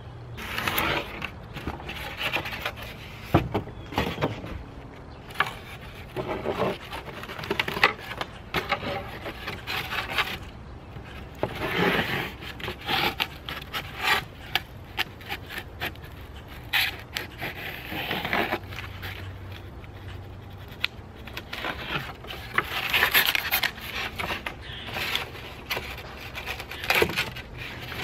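Folding knife blade sawing through pink rigid foam insulation board, a long run of uneven scratchy strokes with short pauses between them.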